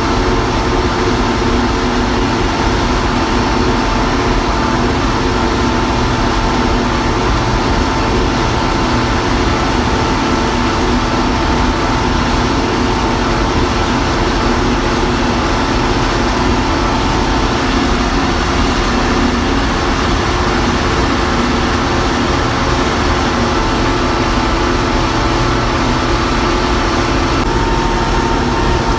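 Allis-Chalmers 210 tractor's six-cylinder diesel engine running steadily while the tractor is driven, a loud, even engine note with no change in pace.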